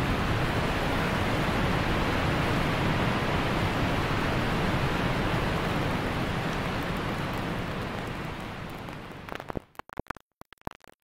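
Steady rush of water pouring over a dam spillway, fading out near the end. After it come sparse crackling clicks of an old-film scratch effect.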